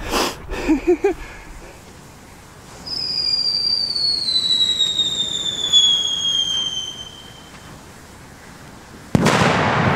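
Screaming Eagle whistle-to-bang firework: a long whistle, falling steadily in pitch, lasts about five seconds. A moment after it fades, near the end, comes a loud flash bang with a rumbling echo.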